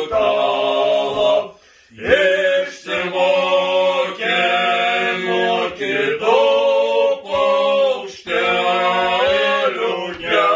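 Men singing a song together without accompaniment, in long held notes, line after line with short breaks for breath.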